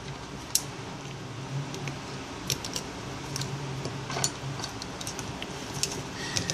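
Scattered light clicks and taps of small tools and parts being handled while taking apart an iPhone 5, about a dozen irregular ticks over a steady low hum.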